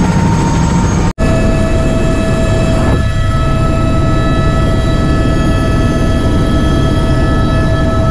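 Helicopter engine and rotor noise heard from inside the cabin in flight: a loud, steady drone with several steady whining tones over it. It cuts out for an instant about a second in.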